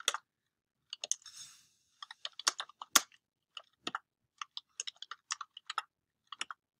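Typing on a computer keyboard: a run of irregular key clicks, with one sharper keystroke about three seconds in.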